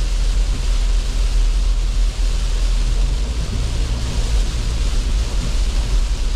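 Steady low rumble and hiss of a car driving at speed on a rain-wet road, heard from inside the cabin.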